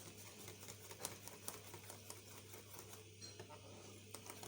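Faint, irregular light ticks of a utensil against a mixing bowl as flour is stirred into cake batter, over a low steady hum.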